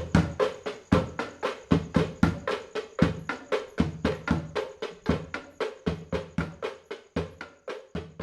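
Percussion of a patrol sahur group, the drumming played to wake people for the pre-dawn Ramadan meal: a quick, even rhythm of about five strikes a second with deep bass-drum hits on some beats, fading away near the end.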